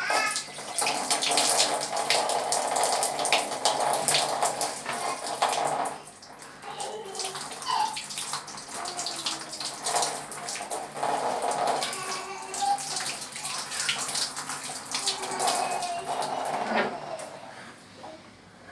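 Water running from a wall tap in a thin stream and splashing over hands and feet as they are washed for wudu (ritual ablution). The splashing is loudest for the first six seconds, then quieter, and dies away near the end.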